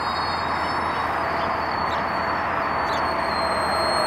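GO Transit bi-level commuter train moving slowly: a steady running noise with a low hum, and thin high wheel squeals held over it.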